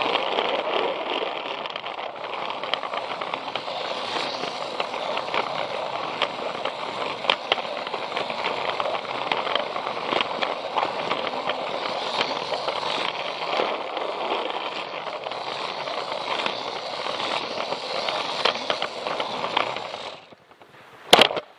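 Plarail battery-powered toy train running on plastic track, heard from on board: a steady rattling of its small motor and gears with many quick clicks from the wheels over the track. The rattle stops suddenly near the end, and a single sharp click follows.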